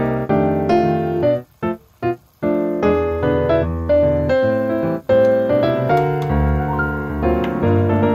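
Background music: a keyboard tune of held notes and chords, briefly breaking off a few times in the first seconds before carrying on.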